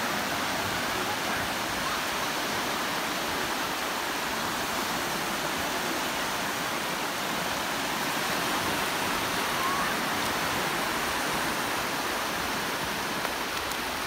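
Small sea waves breaking and washing up a sandy beach: a steady, even rushing hiss.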